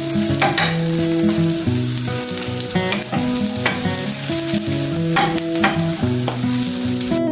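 Onions, nuts and sunflower seeds sizzling in olive oil in a frying pan while being stirred, with short scraping clicks from the stirring. Background music of plucked notes plays throughout. The sizzle cuts off just before the end.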